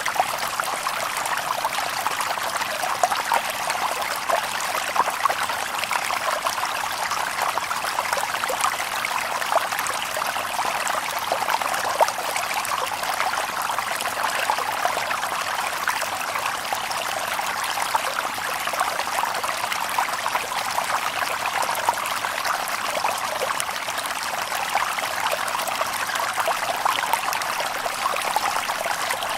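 Shallow stream babbling and splashing over stones in a steady, even rush, with no birds.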